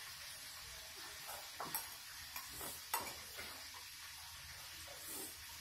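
Hands picking fried rice off a plate set on a tiled floor: faint scrapes and a few light clicks against the plate, the sharpest about three seconds in, over a steady low hiss.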